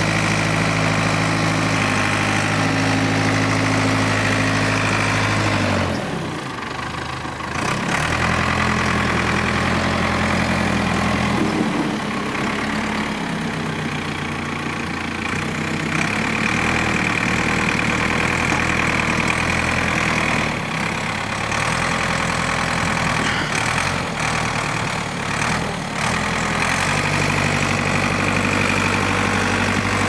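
Ford 555C backhoe's diesel engine running steadily, its pitch shifting up and down several times as the engine speed changes while the loader works.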